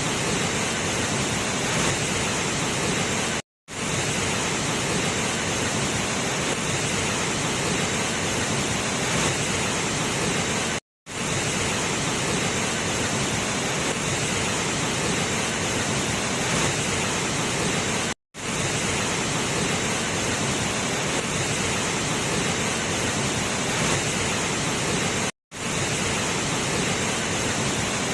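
Waterfall rushing, a steady, even roar of falling water that drops out briefly four times, about every seven seconds.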